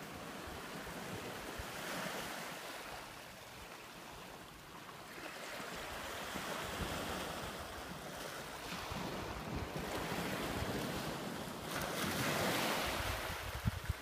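Small ocean waves breaking and washing up a pebble beach, the surf swelling and easing every few seconds and loudest near the end, with wind buffeting the microphone.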